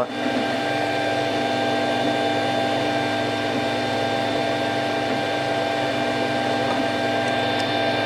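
Cocoon Create FDM 3D printer (a rebadged Wanhao Duplicator i3) running as it prints the first layers: a steady whir of its fans and motors with several held tones.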